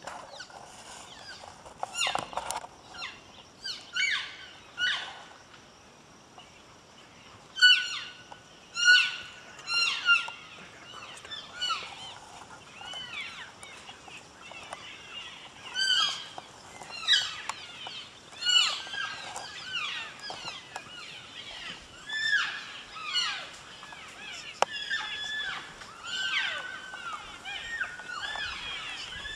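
Elk cows and calves mewing and chirping: many short, high-pitched calls, some arching up and falling away, scattered through the herd with a brief lull about five seconds in.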